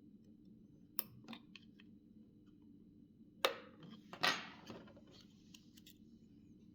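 Small parts of a mobile phone being handled during disassembly: a few light clicks about a second in, then two louder clicks with brief scraping about three and a half and four seconds in, and faint ticks near the end.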